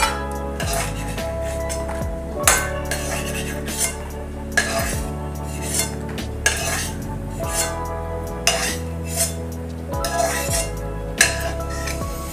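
Steel ladle scraping and clinking against the pan and a steel plate while fried cashews and almonds are scooped out of ghee, with sharp clinks roughly once a second.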